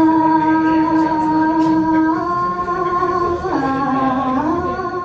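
A voice singing long, held notes, one steady pitch for a couple of seconds at a time, with a dip to a lower note about three and a half seconds in before it comes back up.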